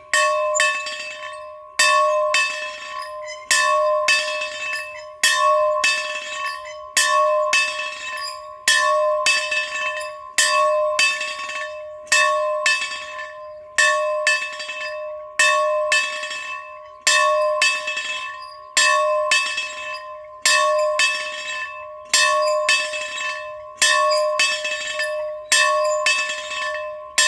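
A church bell rung steadily, a loud strike about every second and three quarters with lighter strikes in between, each strike ringing on into the next.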